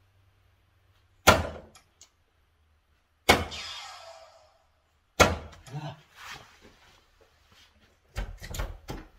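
Three 20 g tungsten soft-tip darts striking the plastic segments of a Gran Board 3s electronic dartboard, about two seconds apart, each a sharp hit. Near the end comes a quick cluster of knocks as the darts are pulled out of the board.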